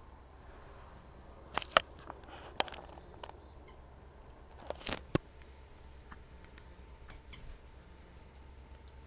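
A few sharp clicks and taps: a close pair a little under two seconds in, another about half a second later, and a louder pair around five seconds in, then lighter scattered ticks. They sound like handling noise from a hand-held camera and a handful of seeds close to the microphone, over a steady low hum.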